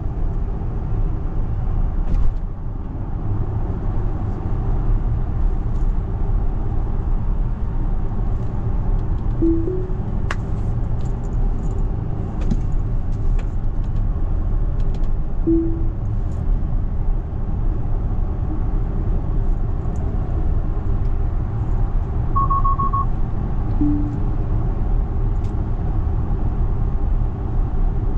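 Steady low road and tyre rumble inside the cabin of a Tesla Model X 100D driving at highway speed, with no engine note. A few short electronic tones sound over it, and about 22 seconds in comes a quick run of higher beeps.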